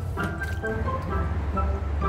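Background music: a bouncy melody of short notes over a steady low drone.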